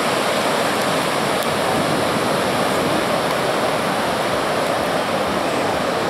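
Heavy ocean surf breaking: a steady rush of whitewater with no pauses.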